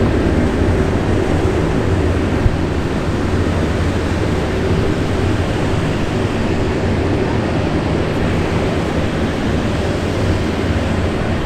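M3 amphibious bridging vehicle running steadily on the water, a low, even engine drone under a wide rushing noise.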